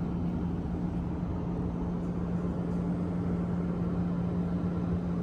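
Steady cabin noise of a Boeing 777-300ER airliner in flight: an even roar with a constant low hum running through it.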